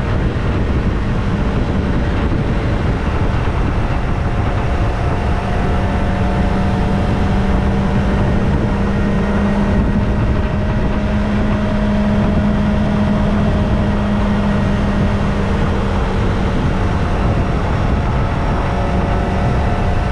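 Kawasaki ZX-25R's four-cylinder engine with its stock exhaust running at a steady cruise, the note holding nearly even with only slight rises and falls in pitch, over a constant rush of wind and road noise.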